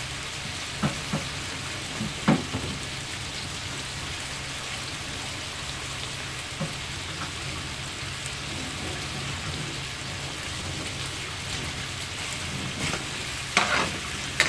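Diced potatoes, onion and garlic sizzling steadily in oil in an aluminium wok being sautéed. A couple of light knocks come about one and two seconds in, and near the end a metal spoon scrapes and stirs in the wok.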